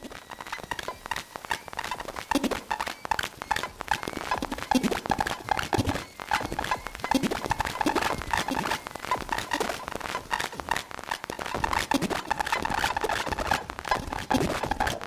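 Experimental electronic music from Moog Mother-32 and Korg MS-20 mini synthesizers: a dense, scratchy stream of clicks and crackles with short bleeps and blips and faint held tones.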